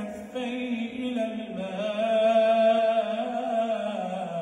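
A man's voice reciting the Quran in the melodic, chanted tajwid style. He stretches a syllable into a long held note in the middle, then glides down to a lower pitch near the end.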